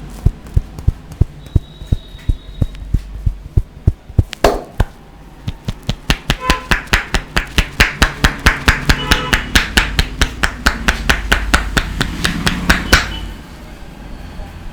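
Rapid rhythmic hand strikes on the head in an Indian head massage, about four a second. After a short pause about halfway through they resume faster, about five a second, and stop abruptly near the end.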